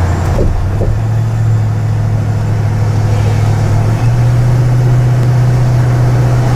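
Steady low drone of a car cruising on a highway, heard from inside the cabin: engine and road noise. The hum steps up in pitch about four seconds in.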